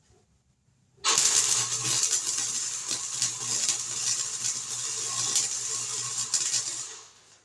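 Welder running a weld bead on the sheet-metal patch panels of a 1950 Chevy truck bed side: a steady crackle with a low hum underneath. It starts abruptly about a second in, runs for about six seconds, and fades out near the end.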